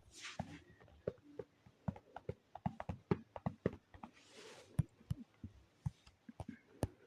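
Irregular run of light clicks and knocks, several a second, some with a brief low ring, with a soft rushing hiss about half a second in and again just past four seconds.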